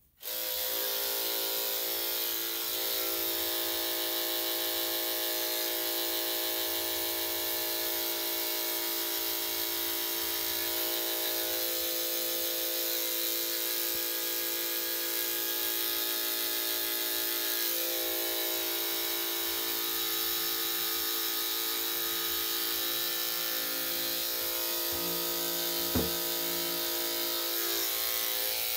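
Corded electric dog grooming clippers with a #10 blade running as they shave a dog's foot: a steady electric hum, switched on just after the start and off just before the end. The pitch shifts slightly now and then, and there is one brief click near the end.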